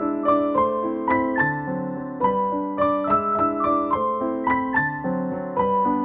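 Background piano music: a gentle melody of struck notes over chords, a few notes a second, each note fading after it is struck.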